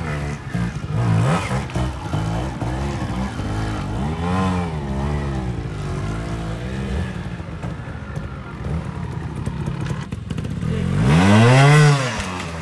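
Trials motorcycle engine blipped over and over, its revs rising and falling in short bursts, with one louder rev near the end.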